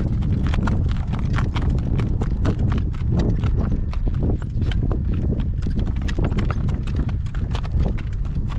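A young driving horse's hooves clip-clopping at a walk on a rough, stony road, with wind rumbling on the microphone.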